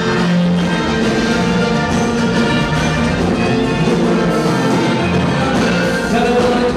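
Live dance-band music with brass, played loud and steady for couples dancing.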